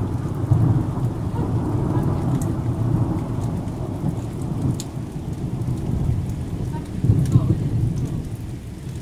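Thunder rumbling in long low waves that swell again about seven seconds in, over steady rain with scattered sharp drips.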